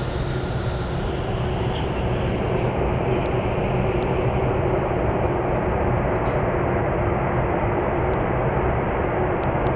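Steady rumble and rush of an ICE 3 high-speed train running at speed, heard from inside the passenger car, with a steady hum underneath and a few faint ticks.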